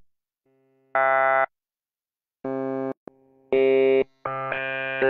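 Electronic keyboard chords in about four short separate stabs, each held for about half a second or a second and cut off abruptly, with silent gaps between them.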